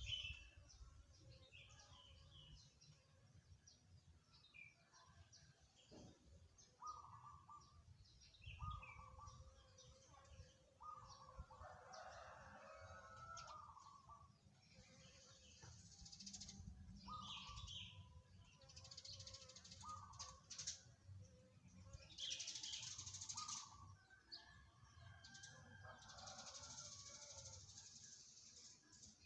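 Zebra dove (perkutut) cooing faintly in short groups of soft notes, repeated several times, with other small birds chirping higher in the background.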